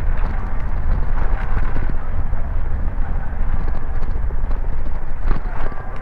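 Rumble and rattle of a bicycle ridden over brick paving, with wind buffeting the microphone and a patter of small knocks; a sharper knock about five seconds in.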